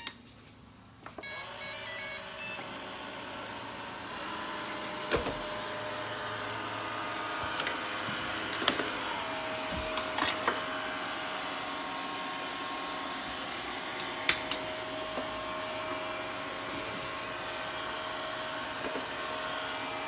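Shark ION RV700 robot vacuum powering up with a few short beeps, then its suction fan and brush motors running steadily with a few sharp clicks and knocks along the way. The once 'broken' robot is working again now that the hair clogging it has been cleared.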